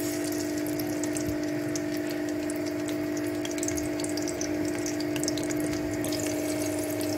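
Sliced onion sizzling and crackling steadily in hot oil in a kadhai, just after being dropped in, over a steady low hum.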